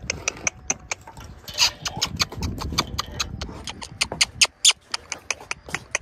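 Horse's hooves clopping on a concrete wash-rack floor as it is led out at a walk: a quick, irregular run of sharp clops, about four or five a second.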